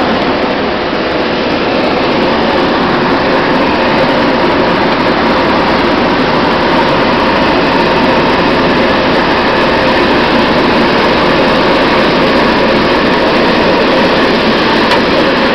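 Quinoa seed-cleaning machine running: a loud, steady mechanical noise with a faint even hum, as cleaned quinoa seed pours from its outlet.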